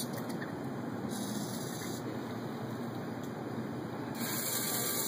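Homemade servo-driven robotic drink-mixing arm running: a steady hiss throughout, with two short stretches of brighter, higher whirring as the arm moves, about a second in and again near the end.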